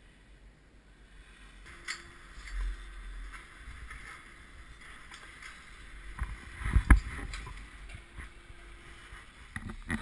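Muffled wind noise and low rumbling on an action camera's microphone riding a ski chairlift, with a cluster of heavy thumps about seven seconds in.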